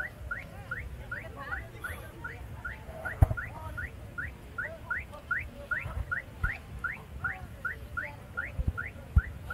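High, short rising chirps repeated evenly about three times a second, over low wind rumble on the microphone. There is a sharp thump about three seconds in and another near the end.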